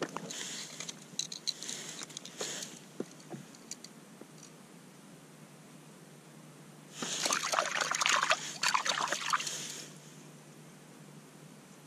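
Water splashing and trickling in an ice-fishing hole, in two bursts full of small clicks: a short one at the start and a louder one from about seven to ten seconds in.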